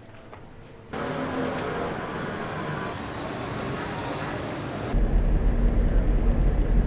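Vehicle and street noise: a loud, steady rush that starts abruptly about a second in, with a heavy deep rumble added near the five-second mark.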